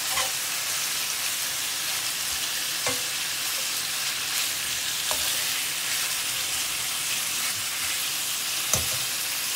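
Bacon sizzling steadily as it browns in a frying pan, with a few light knocks, the loudest near the end.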